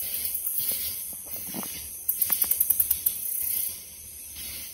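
Night insects: a steady high-pitched chorus, with one loud, fast pulsed insect call about two seconds in that lasts about a second, roughly ten pulses a second.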